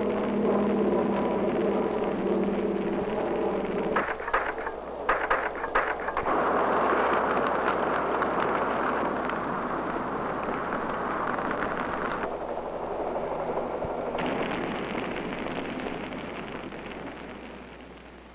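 Piston engines of an air tanker droning overhead for about four seconds, then forest fire burning: sharp crackling pops, then a dense steady rushing noise that fades near the end.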